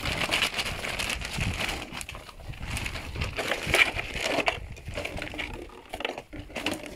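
Several Presa Canario puppies chewing and tugging at a plastic shopping bag, which crinkles and rustles in irregular bursts.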